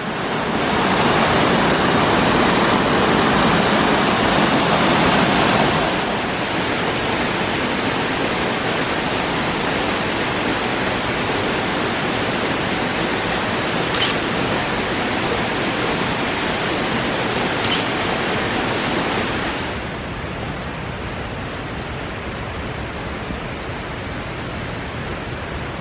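Small mountain waterfall on a river rushing steadily. The sound is fuller for the first few seconds, then drops a step about six seconds in and again near the end. Two brief ticks sound partway through.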